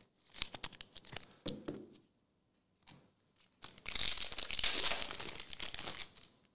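Foil wrapper of a Marvel Annual trading card pack crackling in the hands. About three and a half seconds in it is torn open with a loud tearing and crinkling that stops just before the end.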